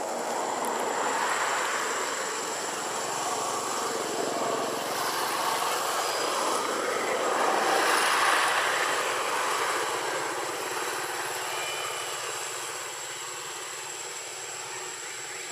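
Steady rushing engine noise that swells about eight seconds in and then slowly fades, with a thin high whine throughout.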